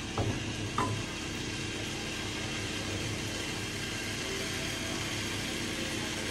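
Fish and masala sizzling in hot oil in a pot, a steady hiss over a low hum. Two light knocks of a wooden spatula against the pot come in the first second.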